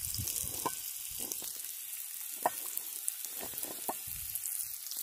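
Breaded fish frying in oil in a cast-iron skillet over a campfire: a steady sizzle with scattered crackling pops.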